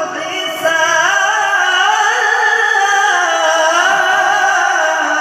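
A male qari's voice in melodic Quran recitation, holding one long ornamented melisma. The pitch climbs about half a second in, then winds up and down.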